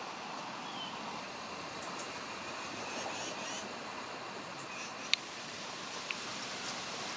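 Steady wind moving through the trees, with a few faint high chirps and a single sharp click about five seconds in.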